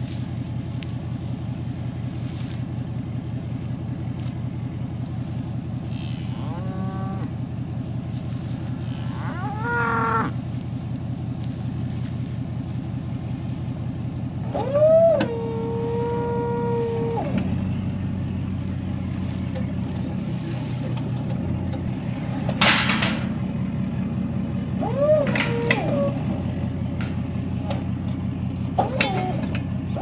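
Beef cattle mooing about five times, the longest and loudest call a little before halfway through, over the steady running of the loader's engine. A short sharp noise stands out about three-quarters of the way through.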